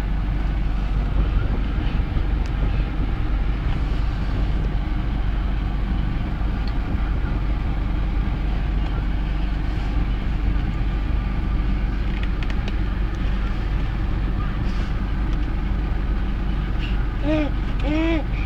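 Steady low rumble of a car's engine idling, heard inside the cabin.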